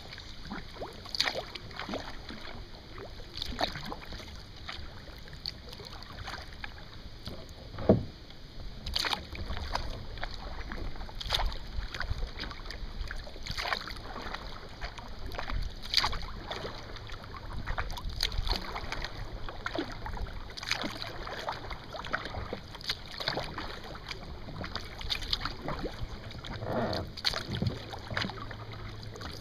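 Kayak paddle strokes dipping and splashing in calm lake water every second or two, with water dripping off the blades. A single sharp knock about eight seconds in is the loudest sound.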